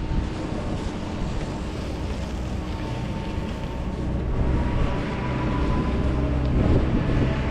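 Wind buffeting the microphone over a low, steady engine rumble with a faint held tone, growing louder about four seconds in.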